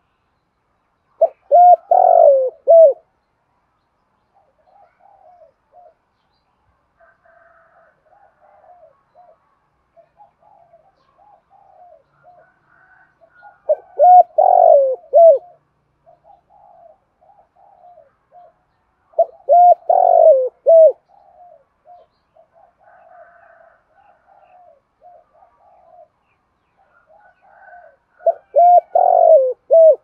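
Spotted dove cooing: four loud phrases, each a short run of deep coo notes, spaced several seconds apart, with fainter cooing from other doves in between.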